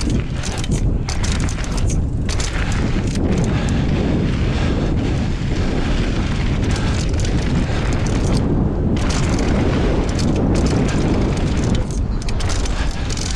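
Wind rumbling over the camera microphone while a mountain bike rolls fast down a dirt trail, its tyres crunching over loose gravel. Many sharp clicks and knocks come through as the bike rattles over bumps and stones.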